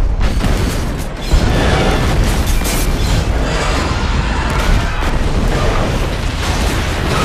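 Film sound effect of a commuter train exploding: a long blast with heavy rumble and rushing fire, which dips briefly about a second in and then surges back in a fresh loud burst.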